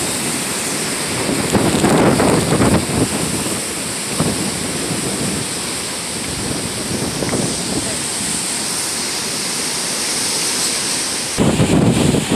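Tropical-storm wind buffeting the phone's microphone in heavy gusts over a steady hiss of rain. The gusts surge about two seconds in and hit again hard near the end.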